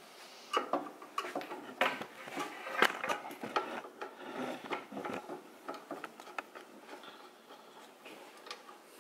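A screwdriver and hands working at the steel upper blade guide of a switched-off band saw: a busy run of small sharp metallic clicks and taps for the first six seconds or so, then a few fainter ticks.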